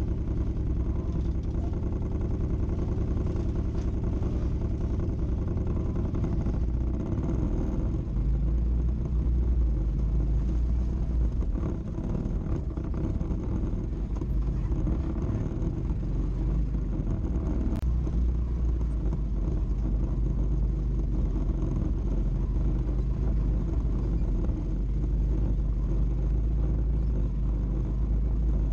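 ATV engine running steadily at low speed as the quad crawls over rock, heard from on board as a low rumble.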